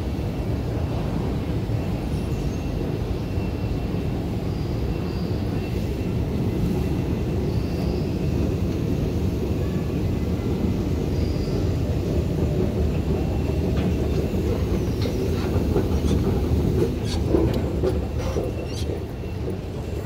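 Steady low rumble and hum of a London Underground station escalator being ridden, with a few sharp clicks near the end.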